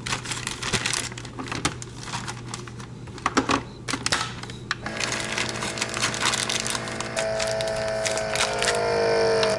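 Plastic vacuum-seal bag crinkling and clicking as it is handled and fitted into a countertop vacuum sealer. About five seconds in, the sealer's vacuum pump starts with a steady hum, its pitch stepping and shifting as it draws the air out of the bag.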